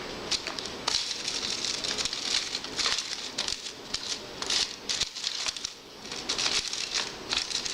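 Small utensil scraping, tapping and clicking against a plastic candy-kit tray while powder is mixed with a little water: a quick, uneven run of short scrapes.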